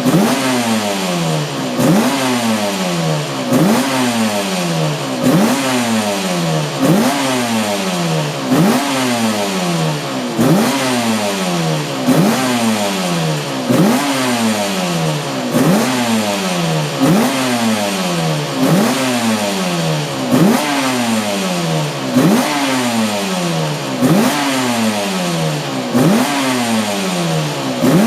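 Cagiva V589 500cc two-stroke V4 Grand Prix racing engine being blipped over and over. The revs shoot up sharply and fall away again about every second and a half to two seconds.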